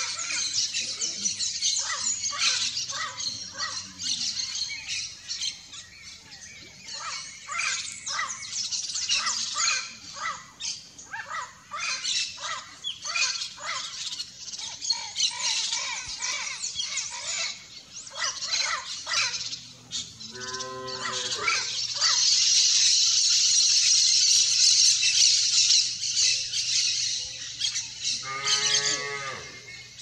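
Yellow-faced parrots giving rapid squawks and chattering calls. A steady high-pitched buzz runs for several seconds after the middle, and two drawn-out calls rich in overtones come about two-thirds of the way through and near the end.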